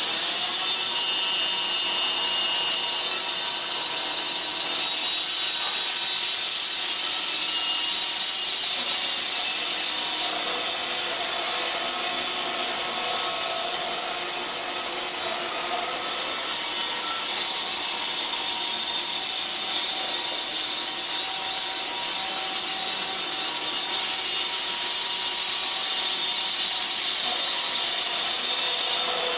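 Band sawmill's blade cutting through a log: a steady, unbroken high hiss with a faint hum of the mill's machinery beneath it.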